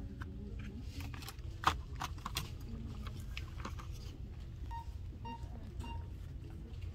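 Shop background hum with faint distant voices, and sharp plastic clicks and a knock about a second and a half in as a plastic Nutella & Go snack cup is handled and set back in its shelf tray. In the second half come three short electronic beeps about half a second apart.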